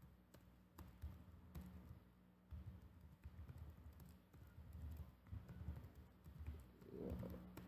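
Faint typing on a computer keyboard: scattered soft key clicks over a low steady hum.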